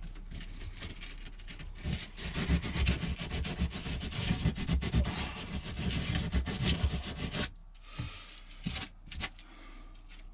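Fiberglass on the inside of a boat hull being sanded by hand: rough, irregular rubbing strokes that grow louder about two seconds in and stop suddenly about seven and a half seconds in, followed by a few light knocks.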